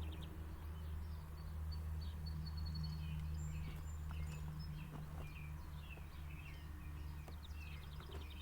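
Outdoor ambience: small birds chirping over a steady low hum.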